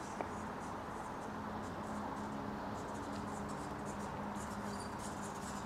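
Steady city street ambience: a low, even rumble with a faint hum in it, one sharp click just after the start, and faint light scratchy ticks through the middle.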